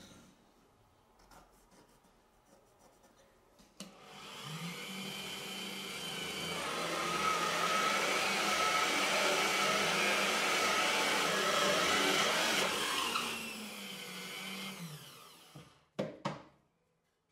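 Bench drill press starting up about four seconds in and boring a 35 mm hole through plywood. Its motor runs steadily under the noise of the bit cutting wood, then winds down with a falling pitch. A couple of sharp knocks come near the end.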